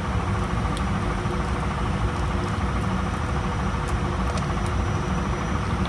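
A steady low rumbling hum with a few faint steady tones, under the quiet stirring of a thick chilli sauce with a spatula in an enamelled cast-iron pot.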